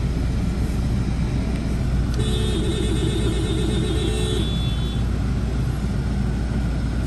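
Steady low road and engine rumble inside a car moving through city traffic. A vehicle horn sounds for about two seconds in the middle.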